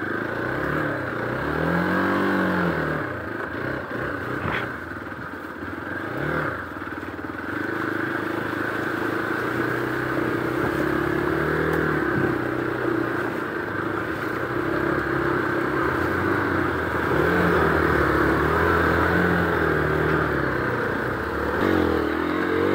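Hero Xpulse 200 4V's single-cylinder engine running under load as the motorcycle is ridden along a muddy trail, its revs rising and falling again and again.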